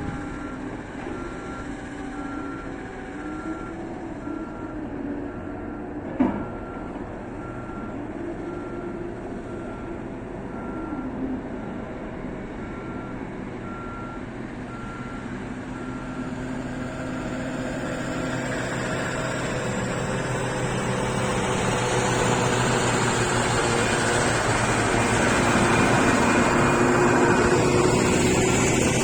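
Belaz mining haul truck working at an electric shovel: a reversing alarm beeps steadily, about one beep a second, over the diesel engine, then stops about halfway through. The engine then grows steadily louder, running harder. A single sharp click comes about six seconds in.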